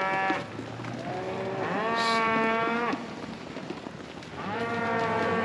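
Cattle mooing: a call fades out at the start, a long moo comes about two seconds in, and another begins near the end.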